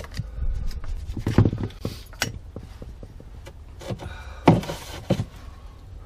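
Scattered knocks and light scrapes from handling white PVC pipe and fittings, the loudest knock about four and a half seconds in.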